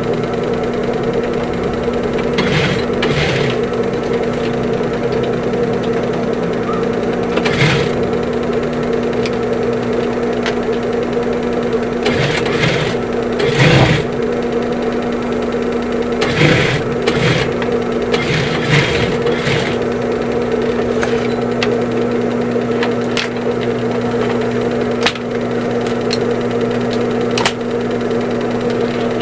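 Sewing machine running with a steady hum, broken every few seconds by short, louder bursts of noise as the zipper is stitched onto the bag.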